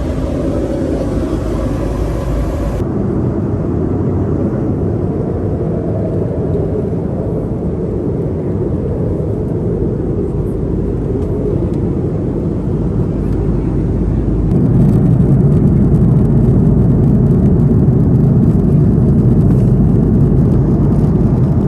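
Steady roar of an Airbus A330-200 airliner's cabin in flight, engine and airflow noise. About three seconds in the hiss turns duller, and from about two-thirds through a louder low rumble comes in.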